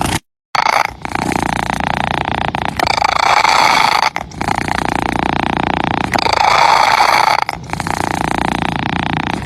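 Domestic cat purring close to the microphone, swelling and dipping with each breath every couple of seconds. The sound cuts out completely for a moment just after the start.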